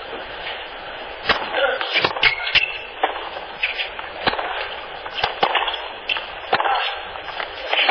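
Tennis rally on a hard court: rackets striking the ball at irregular intervals, with a few short shoe squeaks and low crowd noise behind.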